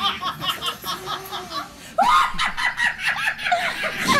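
A woman laughing hard in quick repeated bursts, breaking into a louder fit of laughter about two seconds in.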